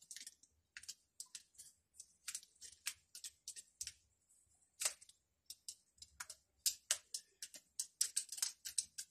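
Small irregular clicks, taps and scratches of foam craft pieces being handled and worked by hand, scattered unevenly throughout.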